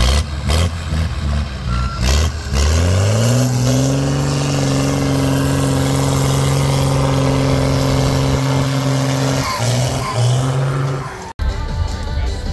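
Csepel trial truck's diesel engine revving up over about a second and then held at high, steady revs under load as it climbs a steep bank, after a couple of seconds of knocks and rumble. The revs dip and waver near the end before the sound breaks off sharply.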